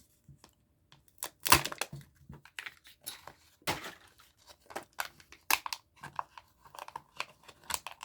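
Wrapping of a Kinder Joy egg being torn open by hand: a run of sharp crinkling and tearing crackles that starts about a second in, loudest near the start.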